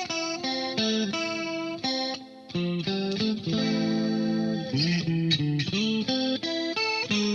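Electric guitar, a Fender Stratocaster, played through effects pedals: a run of quick notes, a long held note in the middle, then notes bent up and down a little after it.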